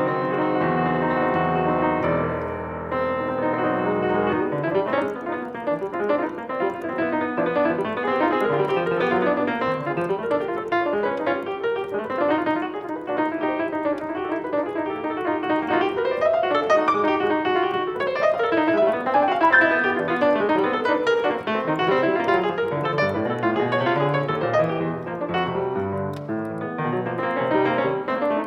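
Solo piano playing continuously: a held low chord for the first few seconds, then a dense stream of rapid notes moving up and down the keyboard.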